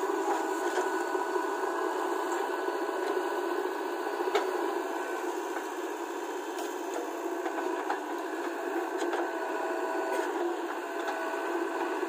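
JCB 3DX Plus backhoe loader's diesel engine running steadily while the backhoe arm works, with a faint steady whine over it and a few light clicks.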